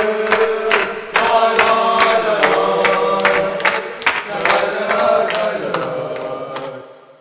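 Crowd of football supporters chanting a song in unison over a steady beat. It fades out near the end.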